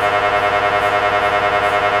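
MRI scanner's gradient coils running a scan sequence: a loud pitched buzzing tone pulsing rapidly, about ten beats a second.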